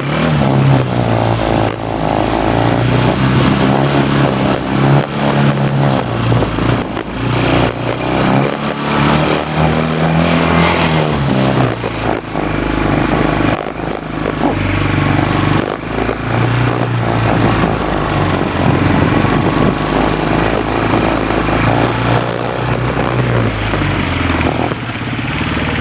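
Roketa ATV engine revving up and down repeatedly while riding, with a tapping knock over the engine note. The owner says the tapping keeps getting louder as the ATV is ridden, which he fears means something is coming apart inside the engine.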